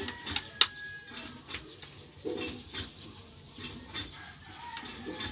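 Birds calling in the background, with scattered sharp clicks.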